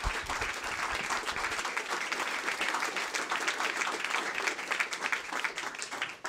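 Audience applauding: dense, steady clapping from a seated crowd that dies away near the end.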